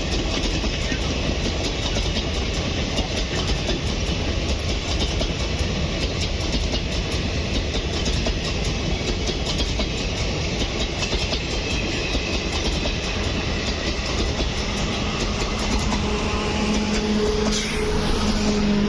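Train running on the rails: a continuous rumble with rapid clicking of wheels passing over the rail joints. A steady low tone joins in during the last few seconds.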